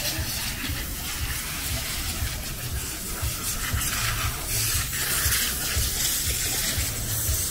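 Wind buffeting a small camera's microphone: an irregular low rumble of gusts under a steady rushing hiss.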